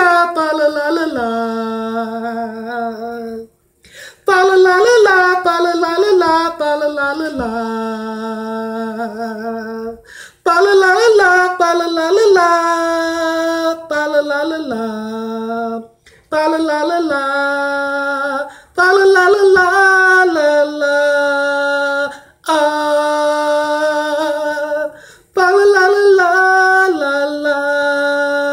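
A man singing solo in six drawn-out phrases, each opening with a quick run of notes and settling onto a long held note that steps down in pitch, with short breaths between phrases.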